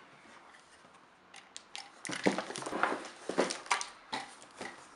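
A plastic-wrapped cardboard parcel being handled and lifted: crinkling of the wrap and irregular knocks of the box on a glass tabletop, starting about two seconds in.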